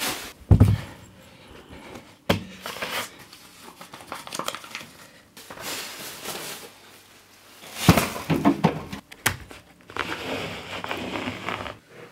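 Rustling and handling noises of people moving about a room, with four sharp knocks or clatters, the loudest about half a second in and at about eight seconds.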